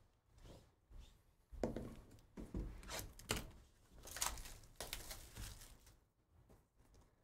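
Cellophane shrink wrap being torn and crinkled off a Panini Court Kings basketball hobby box, in a series of short rips and crackles. A few light knocks come from the cardboard box being handled.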